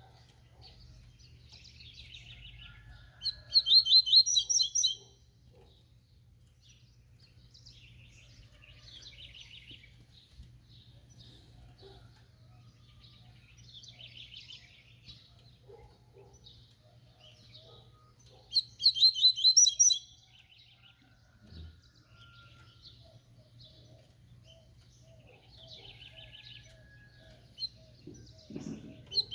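A papa-capim (Sporophila seedeater) singing its 'tui tui' song: high, rapid trilled phrases repeated every few seconds. Two loud bursts come about four seconds and nineteen seconds in, and another starts at the very end, with softer phrases between them.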